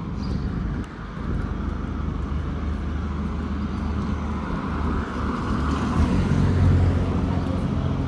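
Motor vehicle engine running close by with a steady low hum, growing louder to a peak about six to seven seconds in as it passes.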